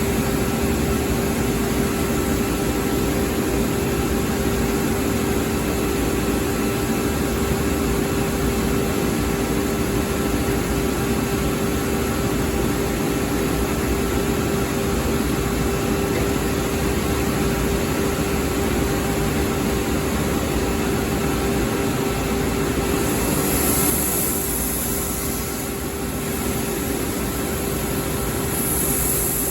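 UniteK Winner wide belt sander running and sanding: a steady hum with a held tone over a constant rushing noise. About 23 seconds in a high hiss comes in for a couple of seconds as the running sound eases a little, and the hiss returns near the end.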